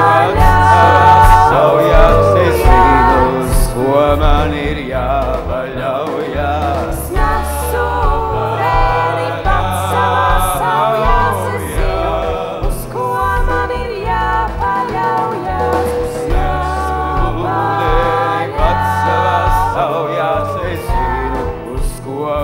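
Live pop band playing, with two women singing together in harmony over bass guitar and drums.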